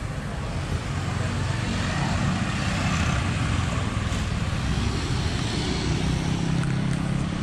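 Road traffic: a motor vehicle's engine running close by over steady traffic noise, growing a little louder about two to three seconds in.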